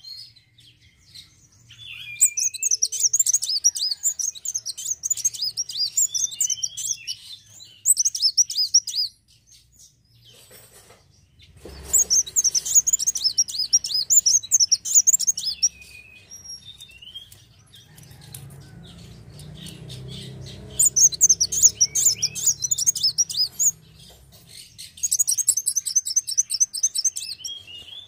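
Kolibri wulung (sunbird) singing in bouts of rapid, high twittering. Five bouts of a few seconds each, with short pauses between, and a soft knock about twelve seconds in.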